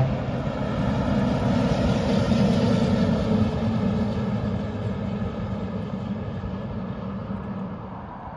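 Heavy truck driving past, its engine getting louder to a peak about two to three seconds in and then slowly fading away.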